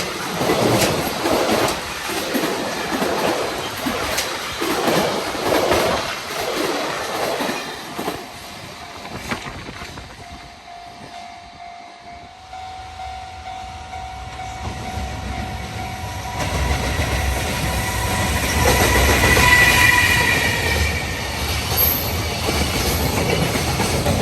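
Freight train passing, its wheels clattering rhythmically over rail joints, dying away about ten seconds in. Then another train approaches, growing louder, and a horn sounds briefly near the end.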